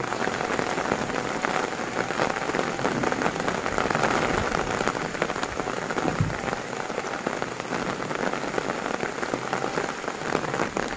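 Heavy rain falling steadily, with a dense patter of drops on roofs and leaves.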